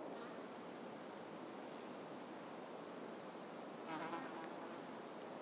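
Meadow insects chirping: a steady run of short, high pulses repeating a few times a second. A brief, louder call breaks in about four seconds in.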